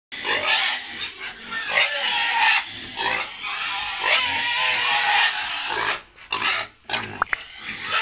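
Pigs in a pen calling over and over, a run of noisy grunts and squeals. The calls break off briefly twice near six and seven seconds, and two short high squeaks follow.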